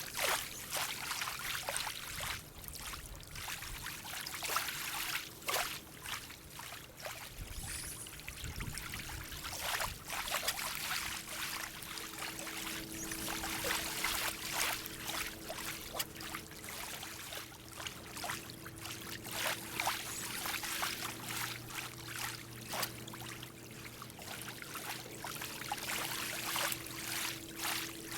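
Trickling water with many small scattered clicks and knocks of hands handling fishing gear; a faint steady hum comes in about halfway through.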